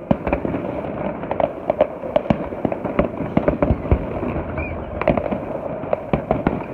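Fireworks going off: a rapid, irregular run of sharp bangs and crackles, several a second.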